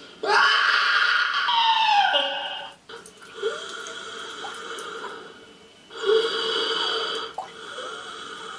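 Ghostly groaning and heavy breathing from the dungeon's 'ghost'. It comes in two loud spells: the first starts just after the beginning and ends in a falling moan, the second starts about six seconds in.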